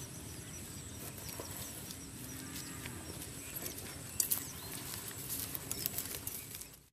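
Field ambience of scattered bird chirps and a thin, steady high whine over a low background hiss. Over it come light rustles and footsteps on dry grass as people get up and walk off, with a sharper clatter about four seconds in. The sound fades out at the very end.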